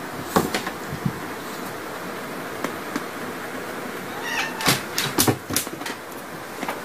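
Domestic cat giving a short yowl about four seconds in, a warning at a dog it is facing with its back arched, followed by a few short sharp sounds, over a steady hiss.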